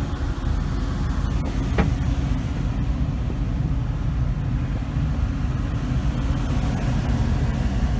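Steady low rumble of a passenger steamship underway, heard from its open deck, mixed with wind buffeting the microphone.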